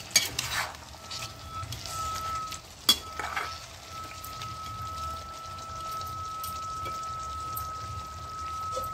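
Potato-and-onion curry simmering and sizzling in an aluminium kadhai, with a ladle scraping the pan in the first second and a sharp tap on the metal about three seconds in. A steady high tone runs under it from about a second in.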